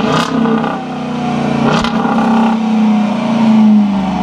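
2013 Dodge Durango's 5.7-litre Hemi V8 heard at the tailpipe, running and being revved: two quick revs early on about a second and a half apart, then a longer swell that rises and falls near the end.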